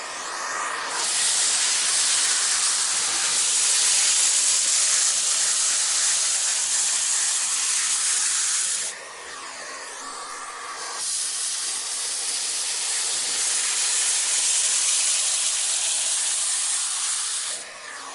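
Vacuum cleaner airflow: a loud, steady rushing hiss, mostly high-pitched with little low hum, that falls away for about two seconds around nine seconds in, then returns and falls away again near the end.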